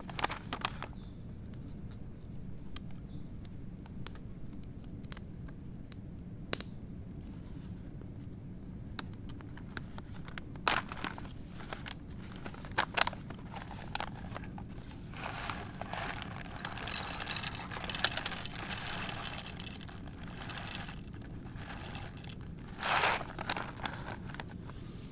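Kraft-paper coffee bag crinkling and rustling as it is handled and opened, with scattered light clicks. The crinkling is densest a little past halfway, and there is a short burst near the end.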